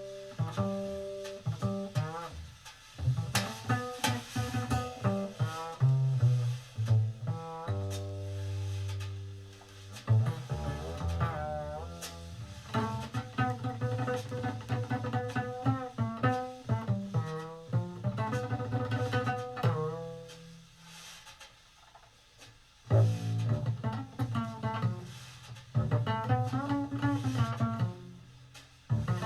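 Jazz double bass played solo-fashion, mixing long bowed notes, one held for a couple of seconds, with plucked phrases that slide between pitches. It eases off to a quiet stretch about two-thirds through, then comes back in.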